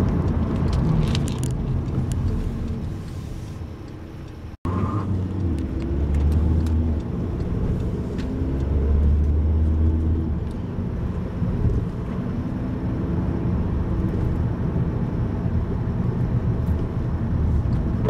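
Car cabin noise while driving: a steady low road and engine rumble, broken by a brief gap about four and a half seconds in.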